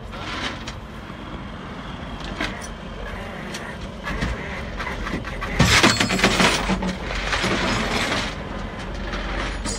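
Vehicle engines running with highway traffic noise: a steady low engine hum, with a louder rush of noise beginning a little past halfway that lasts a few seconds.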